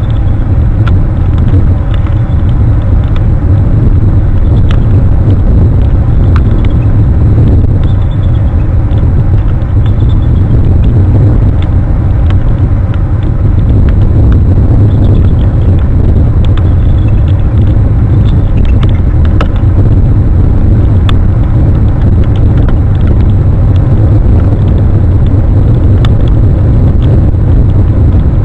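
Wind buffeting an outdoor camera's microphone: a loud, steady low rumble with a few faint clicks.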